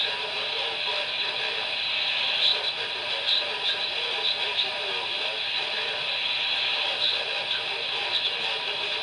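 Steady hiss of radio static in a narrow, tinny band, with faint indistinct sound beneath it and no clear speech.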